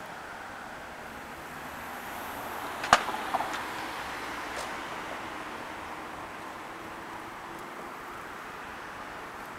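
Steady outdoor town background noise, a hum of distant traffic, with one sharp click about three seconds in and two fainter knocks just after it.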